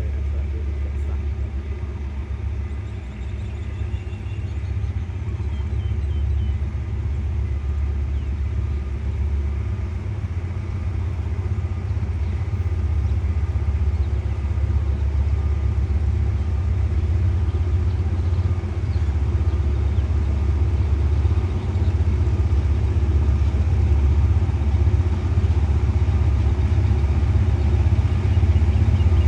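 Diesel train engine running with a steady low rumble, slowly growing louder.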